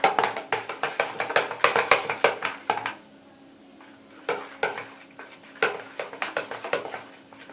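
A spoon stirring and scraping slime mixture in a bowl, with quick clicking strokes that pause for about a second partway through.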